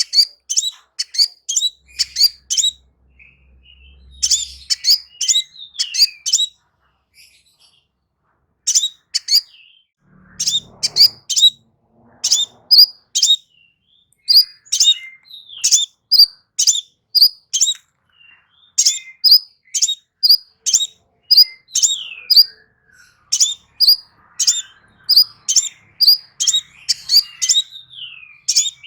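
Crimson sunbird singing: runs of short, sharp, high chips, several a second, broken by brief pauses and a few slurred falling notes.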